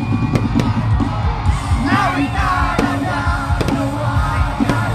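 Live rock band playing loudly to a steady drum beat, with voices singing and shouting over the music from about two seconds in.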